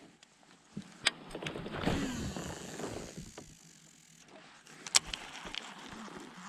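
A fishing reel whirring for about a second and a half, with a few sharp clicks and knocks about a second in and near five seconds.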